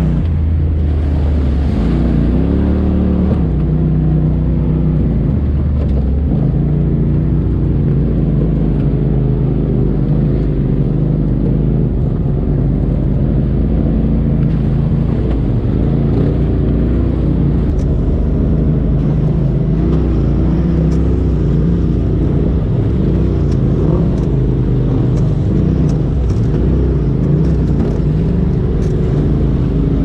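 Polaris RZR side-by-side's engine running under way, its pitch rising and falling as the throttle opens and closes. Scattered sharp clicks join in over the second half.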